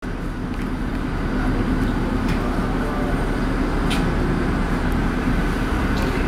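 Bombardier R142 subway train approaching on the tracks: a steady low rumble of the train on the rails that slowly builds, with a few brief sharp clicks.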